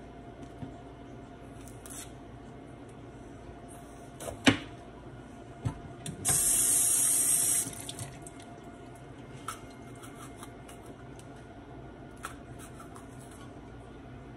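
Kitchen tap running briefly, a steady hiss of water for about a second and a half, a couple of seconds after a single sharp knock; small knife and bowl clicks otherwise.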